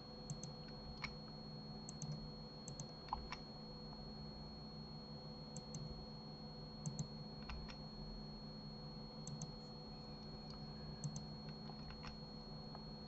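Faint, scattered clicks of a computer mouse and keyboard, often in quick pairs, about a dozen in all, over a steady faint high whine and low hum.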